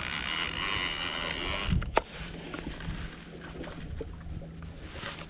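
A large Avet conventional fishing reel rattles for nearly two seconds as line runs through it with a heavy fish on, then gives one sharp click. After that a faint low steady hum remains.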